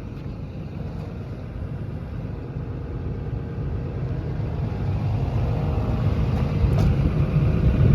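Komatsu PC210LC-11 excavator's diesel engine running steadily, a low rumble that slowly grows louder.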